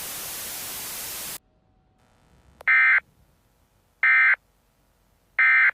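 Static hiss that cuts off abruptly about a second and a half in, followed by three identical short, shrill digital data bursts about a second and a half apart. These are the Emergency Alert System's SAME end-of-message codes, which mark the close of the tornado warning broadcast.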